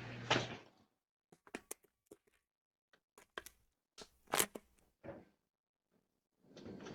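A few scattered clicks and knocks with short gaps between them, the sharpest about four seconds in, then a brief rustle near the end.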